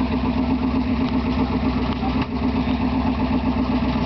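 V8 engine idling with a steady, rhythmic rumble.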